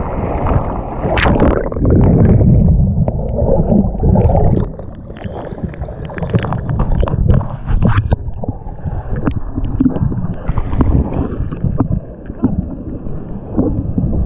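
Water sloshing and splashing around a GoPro held at and under the waterline in rocky surf: a low rumbling wash with many small clicks and knocks, loudest in the first few seconds and easing somewhat after about five seconds.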